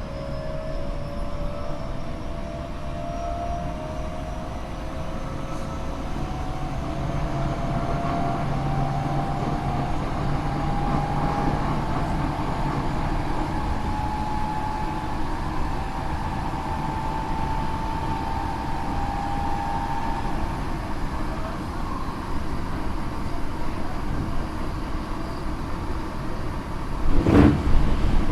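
Tokyo Metro 8000 series car with a Mitsubishi IGBT VVVF inverter accelerating: the traction motor and inverter whine climbs slowly in pitch over about twenty seconds, then gives way to steady running rumble. The car is a known abnormal-noise car whose motor sound is muddy across most speeds. Near the end comes a sudden thump and the running noise gets louder.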